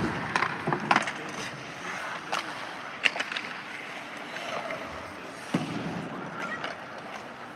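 Ice hockey skates scraping and carving on the ice, with several sharp clacks of sticks hitting pucks and pucks striking the boards, heard in a near-empty arena.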